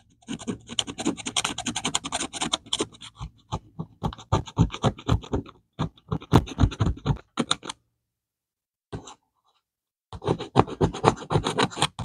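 Steel multi-tool scraping the surface of a counterfeit one-ounce Silver Eagle coin in quick, rapid strokes, rubbing through the plating to test what lies underneath. The strokes stop for about two seconds near the end, then start again.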